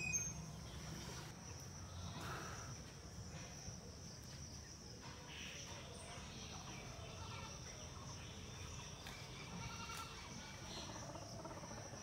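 Breeding chorus of Indian bullfrogs (Hoplobatrachus tigerinus), males calling in a pond, heard faintly, with a steady high insect trill running underneath.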